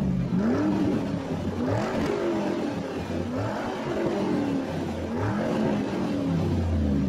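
Car engine revved again and again, about four blips, each one rising in pitch and falling back to a low rumble.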